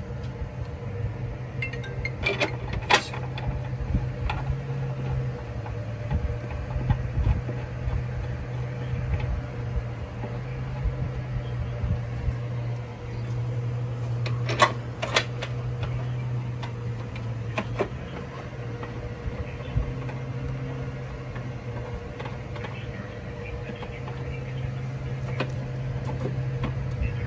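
A few sharp metallic clicks and clinks of tools and bolts during work on a car's engine mount, over a steady low mechanical hum. The clearest clicks come about two to three seconds in and again about halfway through.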